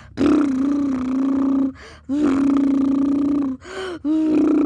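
A child's voice imitating a hair-salon machine running: a steady hummed or buzzed drone at one pitch, held three times for about a second and a half each, with short gaps between.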